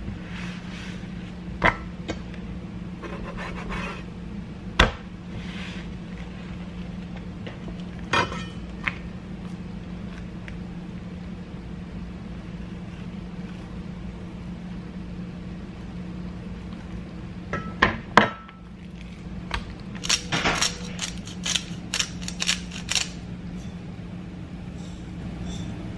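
Kitchen knife and hands working raw chicken breast on a wooden cutting board: scattered sharp knocks and clinks of the knife against the board, with a run of quick taps about twenty seconds in. A steady low hum underneath.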